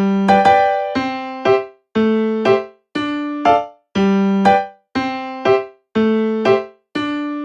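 Background music: a simple electric-piano tune that repeats a held low note followed by quick short notes about once a second.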